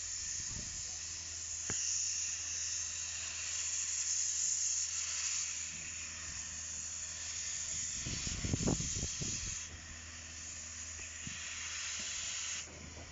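Steam hissing from a Hudswell Clarke 0-6-0 saddle tank locomotive's open cylinder drain cocks as it moves off slowly. The hiss swells and fades, with a short burst of low thumps about two-thirds through, and drops off sharply near the end.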